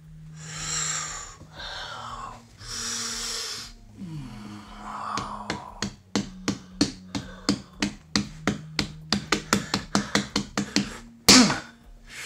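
Open hand on a whole watermelon's rind. First comes a few seconds of rubbing strokes, then a run of quick light slaps that speeds up to about five a second, with one hard slap near the end.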